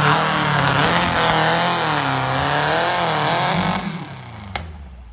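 Off-road buggy engine revving hard on a steep hill climb, its pitch rising and falling as the throttle works. The sound falls away sharply about four seconds in.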